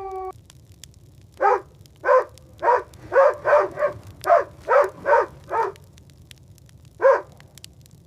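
Sled dogs barking: a quick run of about ten barks, then a single bark a second and a half later, over a low rumble of blizzard wind.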